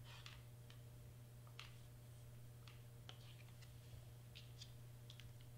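Near silence: a steady low hum with scattered faint ticks from hands handling glitter cardstock pieces and a hot glue gun.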